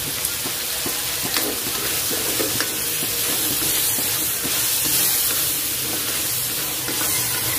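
Shrimp sizzling in oil in a frying pan, with a utensil scraping and clicking against the pan as they are stirred.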